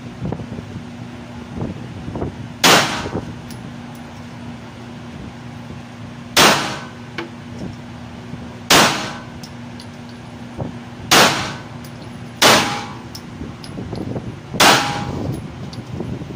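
Six handgun shots fired one at a time, unevenly spaced about one to four seconds apart, each a sharp crack with a short echo off the walls of the indoor range.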